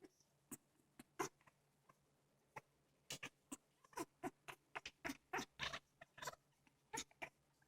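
African grey parrot making soft, short clicks and squeaks in an irregular series, sparse at first and coming quicker from about three seconds in.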